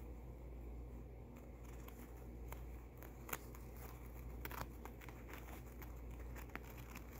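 Paper towel crinkling and rustling in scattered small ticks as a hamster shifts about in it, with a few sharper crackles, over a steady low hum.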